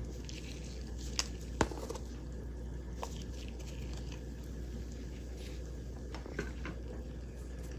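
Slices of fresh ginger being put into a stockpot of water, with two sharp clicks a little over a second in and a few faint knocks and small splashes after. A steady low hum runs underneath.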